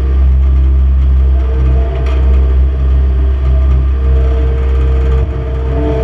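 Skid steer loader's engine running steadily at working revs, heard from inside the open cage cab. A steady higher whine joins about four seconds in.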